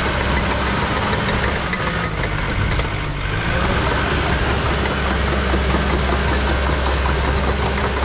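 Diesel engine of heavy equipment running steadily at a low, even note, with a knocking clatter. The engine note shifts slightly about three seconds in.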